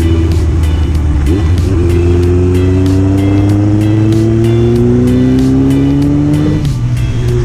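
Kawasaki KZ1000 MK2's air-cooled inline-four, through a KERKER exhaust, pulling under acceleration: its pitch climbs steadily for about five seconds, then drops suddenly near the end as at an upshift. Background music with a steady beat plays over it.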